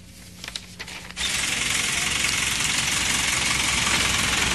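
After a second of quiet room tone, a loud, steady vehicle engine noise with heavy hiss cuts in abruptly and runs on evenly.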